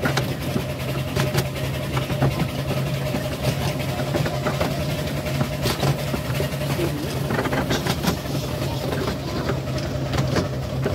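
Train running along the line, heard from on board: a steady low engine drone with irregular clicks and knocks from the wheels and running gear.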